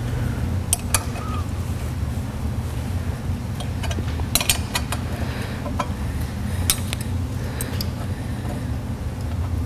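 Sharp metallic clicks and clinks of a hand tool on a Vibe-Lock header bolt and its toothed washer at an aluminium exhaust header flange, a dozen or so scattered ones bunched together about halfway through, over a steady low hum.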